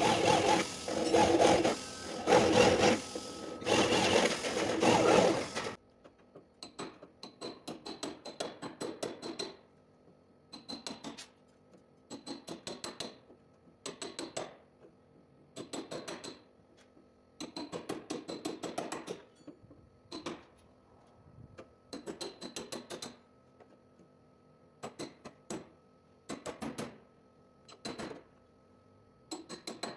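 A handheld power drill runs in several short bursts against the car's sheet-metal body. At about six seconds it stops, and a hammer then drives a chisel into the sheet metal in quick runs of taps, one run every second or two, with a light metallic ring.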